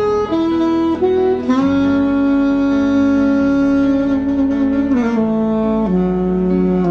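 Slow instrumental background music: a melody of held notes that steps through a few short notes, then holds one long note from about a second and a half to five seconds in before moving lower.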